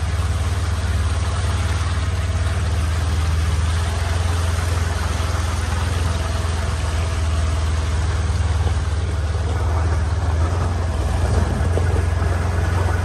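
An engine running steadily, a continuous low drone with no change in speed.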